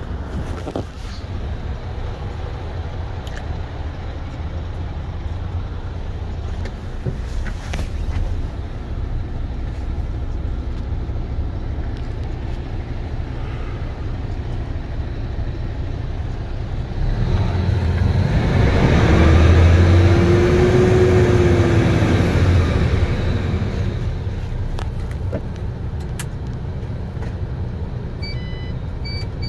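MAN TGX 480's D26 12.4-litre straight-six diesel idling at about 600 rpm, heard inside the cab as a steady low rumble. About two-thirds of the way through, a louder swell builds and fades over several seconds. A few short electronic beeps sound near the end.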